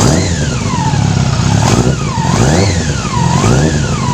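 Yamaha R6 inline-four sport-bike engine, just started, being blipped so that it rises and falls in revs about once a second. It is kept on the throttle because the cold engine's idle drops, though it runs on all cylinders after its flooded number 2 cylinder was cleared.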